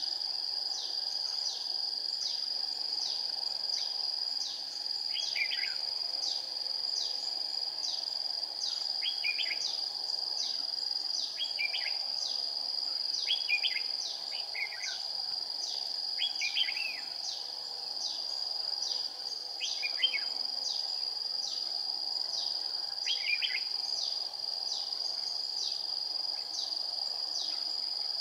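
A steady, high-pitched insect drone pulsing regularly throughout, with short phrases of red-whiskered bulbul song breaking in every few seconds.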